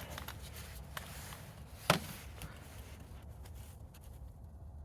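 Light handling clicks and taps, with one sharper click about two seconds in, as a twist-lock abrasive disc is fitted onto a cordless right angle grinder. The grinder is not running.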